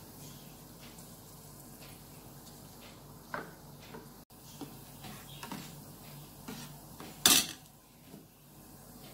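Stainless-steel saucepan and steel ladle knocking and clinking, a few scattered knocks from about three seconds in, the loudest a sharp clank a little past seven seconds, over a faint steady low hum.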